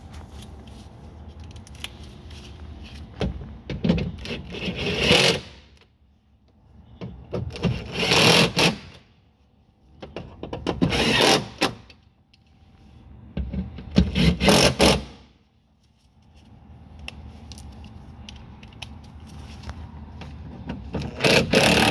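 Cordless impact driver tightening the Torx screws that hold a car window regulator and its motor in the door, in five short bursts of rapid hammering about a second or two each, one screw after another.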